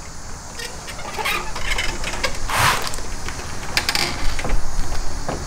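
Plastic kidney grille being fitted into a BMW F30's front bumper: light plastic clicks and scrapes as its tabs are lined up with their holes and pressed in, with a longer scrape about two and a half seconds in.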